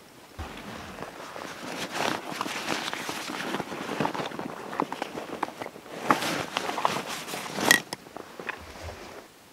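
Canvas fabric and webbing straps of a Savotta backpack rustling as it is handled, with many sharp plastic buckle clicks; the loudest click comes near the end, after which it goes quieter.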